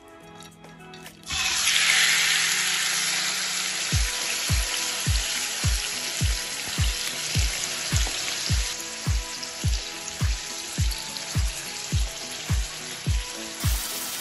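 Marinated chicken pieces hitting hot oil in a frying pan and sizzling. The sizzle starts suddenly about a second in, is loudest at first, then settles to a steady sizzle. Background music with a steady beat joins from about four seconds in.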